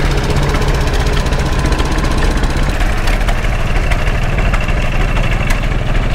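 An engine running steadily close by, with a fast, even beat.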